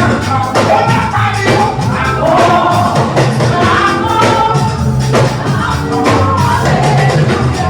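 Live band music with voices singing over a steady bass line and regular percussion strokes, as played at a band's sound check.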